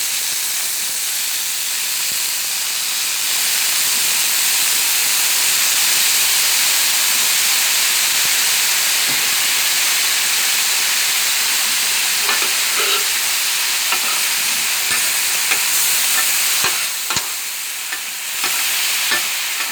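Food sizzling steadily on a hot Blackstone flat-top griddle after teriyaki sauce has been added, with a steady hiss of steam. From about twelve seconds in, a metal spatula scrapes and taps on the griddle steel now and then.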